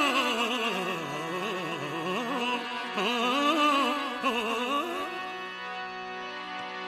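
Opening of a devotional bhajan: a wordless, heavily ornamented melody that slides and wavers in pitch over a steady held accompaniment. The melody drops out about five seconds in, leaving only the sustained tones.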